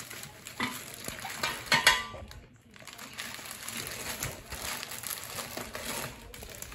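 Clear plastic bag and bubble wrap rustling and crinkling as a wrapped camping coffee pot is lifted and handled, with a few light clinks, loudest about two seconds in.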